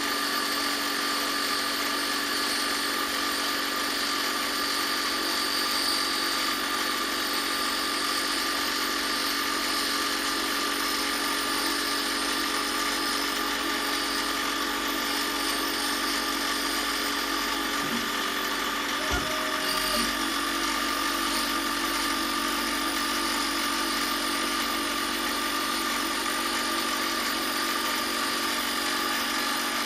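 An electric power tool's motor running steadily, with a constant pitch and even noise throughout, broken only by a brief knock about two-thirds of the way through.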